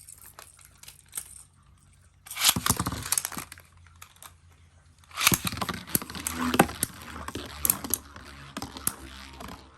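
Metal Fight Beyblades (Jade Bull 85RS and Lightning L-Drago 100RF) being launched with ripcord launchers, with a tearing rattle, then the metal tops clattering and scraping against each other and the stadium in a run of sharp clicks.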